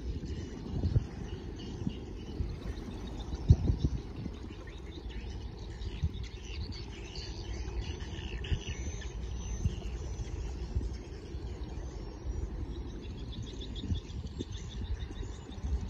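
Birds chirping over an uneven low outdoor rumble with irregular thumps; a quick run of chirps comes near the end.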